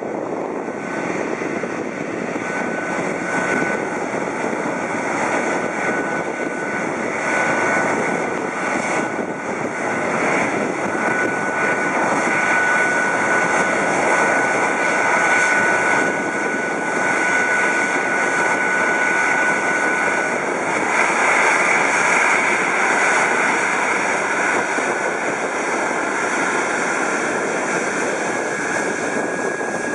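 A Boeing 777-200ER's twin General Electric GE90 turbofans running at taxi power: a steady jet rumble with a thin high whine held through much of it, swelling slightly a little past the middle.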